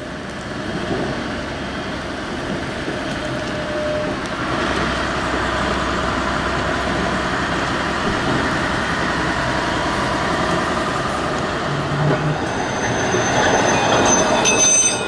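Blackpool Centenary-class electric tram running slowly past, a steady rumble of wheels on rail and running gear. A few thin high tones come in near the end.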